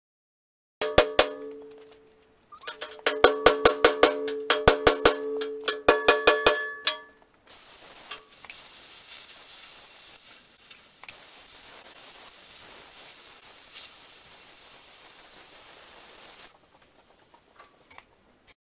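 Rapid hammer blows on the steel loader bucket, about four a second, each ringing on in clear tones. These are followed by a steady high hiss as a hand-held tool cuts into the bucket's edge, throwing sparks.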